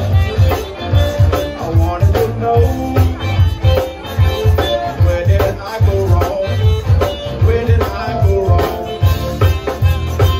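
Live zydeco band playing an instrumental stretch on electric guitar and drums, with a steady dance beat of about two low thumps a second.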